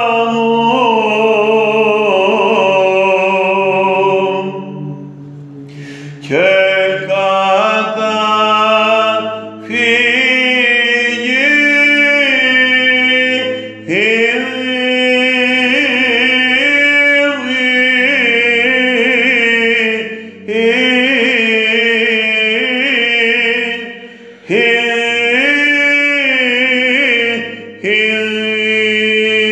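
Solo male cantor chanting a slow, melismatic Byzantine hymn in plagal first mode, in long phrases broken by short breaths. Beneath the melody runs a steady low held drone, the ison.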